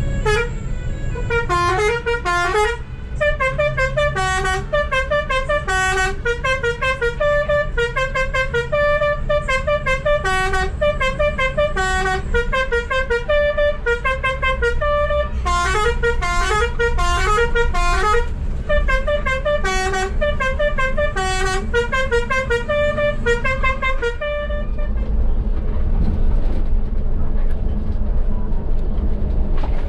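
Bus telolet horn (Basuri multi-trumpet air horn) playing quick tunes of short stepping notes, over the rumble of the bus's engine. The horn stops about four-fifths of the way through, leaving only the engine rumble.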